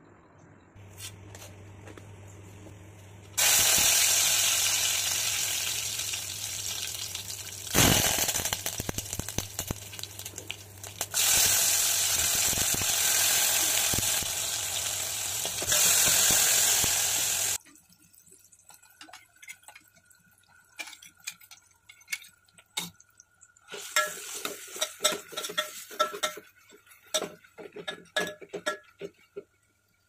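Loud sizzling hiss from a metal pot on the stove, in several stretches that each fade a little. After about 17 seconds it stops, and a ladle stirs and clinks against the metal pot in quick scattered taps.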